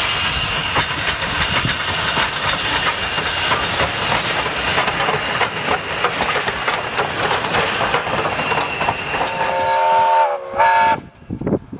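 Steam train rolling past: a steady rush with irregular clatter of carriage wheels on the rails. Near the end, the SAR T class steam locomotive's whistle blows one long blast, then a short one, before the sound cuts off abruptly.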